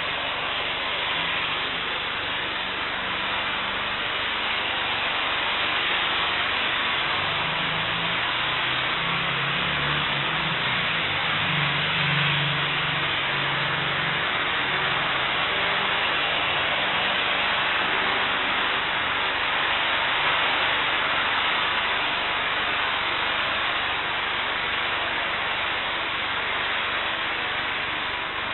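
Distant Boeing 747-8 freighter's four jet engines during its landing roll on a wet runway: a steady, hissing roar.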